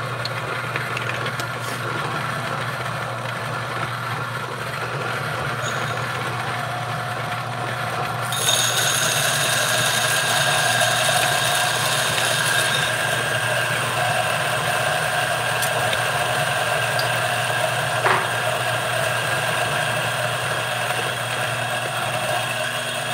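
Niche Zero conical-burr espresso grinder running, its motor humming steadily as it grinds a single dose of coffee beans; about eight seconds in the grinding grows louder and hissier and then holds steady.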